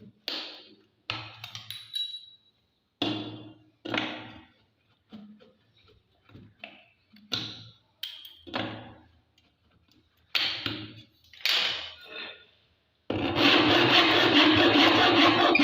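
A series of irregular knocks, roughly one a second, each ringing briefly as it dies away. About 13 seconds in, loud background music cuts in abruptly.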